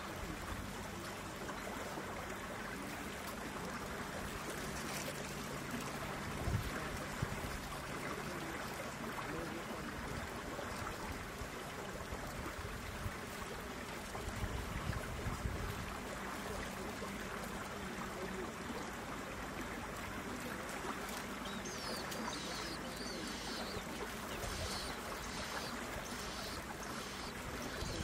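Steady outdoor rushing noise of water, with a low hum in the first few seconds. In the last several seconds, a run of short, high, thin bird chirps repeats about twice a second.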